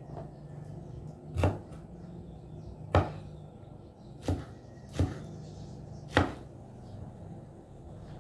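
Large kitchen knife chopping vegetables on a wooden cutting board: five sharp, unevenly spaced chops over a steady low hum.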